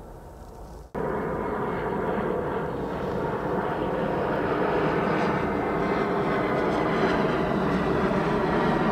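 Jet airliner engines at an airport, starting abruptly about a second in and growing slowly louder as the aircraft comes closer.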